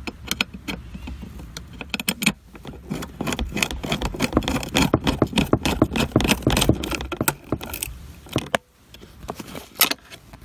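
A screw being driven into plastic trim with a long magnetic screwdriver extension: a dense run of small metal clicks and rattles from about two seconds in to about eight seconds in, with a few more clicks near the end.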